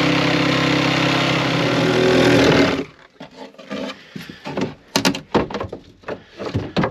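Cordless power saw cutting through a plywood floor panel, running steadily and stopping abruptly about three seconds in. Then loose cut plywood pieces are worked free by hand, with scattered knocks and wooden clatter.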